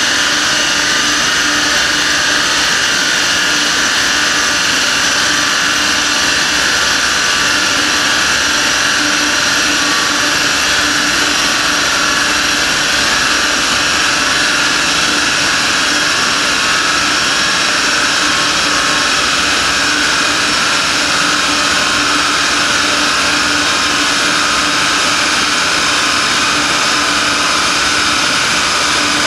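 Large dyno-cell cooling fan running, a loud steady blowing whir with a constant hum that never changes pitch.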